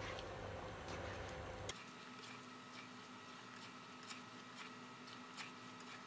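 Faint, scattered ticks and light scrapes from a spatula stirring a thick cream sauce in a nonstick frying pan, with the sauce softly simmering. A low hum stops abruptly a little under two seconds in.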